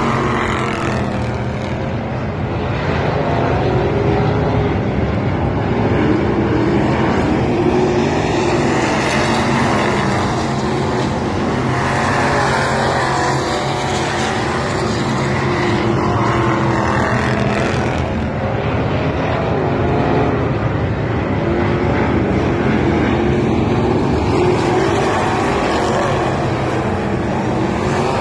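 A pack of street stock race cars running at racing speed, their engines' pitch rising and falling over and over as the cars go by.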